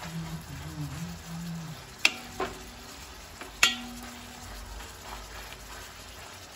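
Fish fillet frying in oil in an aluminium pan, sizzling steadily, while a wooden spatula scrapes and spreads masala paste over it. The spatula knocks sharply against the pan three times, around two and three and a half seconds in, and the loudest knock leaves a short metallic ring.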